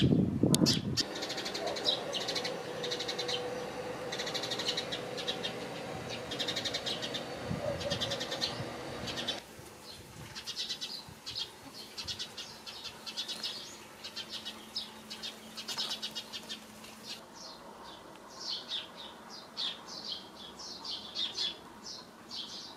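Small birds chirping in quick, short, high notes, over and over, through the whole stretch. A brief low rumble is heard at the very start.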